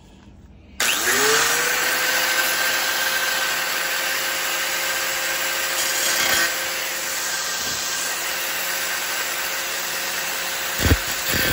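An angle grinder with a thin cutoff wheel starts about a second in, its whine rising quickly to a steady pitch, then runs steadily with a dense hiss. There is a knock just before it cuts off abruptly at the end.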